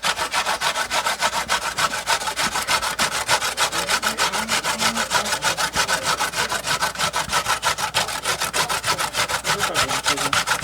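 Vegetables being grated by hand: quick, even rasping strokes, about six a second, kept up without a break.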